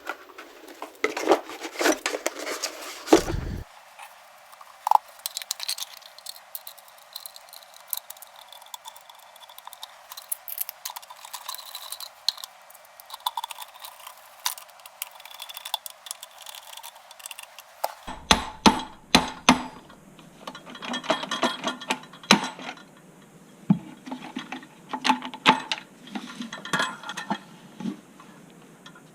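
Irregular clinks, taps and clicks of metal tools and parts being handled, in clusters with short pauses.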